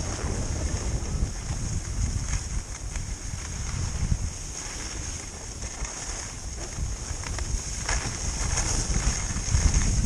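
Wind buffeting the microphone while skiing downhill, over a steady hiss of skis running on packed snow. The snow scraping swells briefly as the skis turn, about two seconds in and again near the end.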